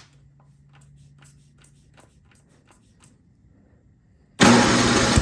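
Faint clicks of the controls being handled, then about four seconds in the Yard King snowblower's engine, choked, is cranked and starts running loudly.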